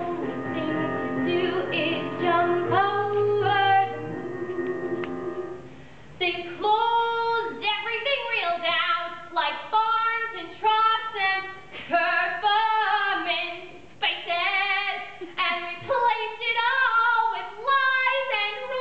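A woman singing a show tune solo, in short phrases with vibrato on the held notes. The first few seconds hold steady sustained chords before the voice takes over.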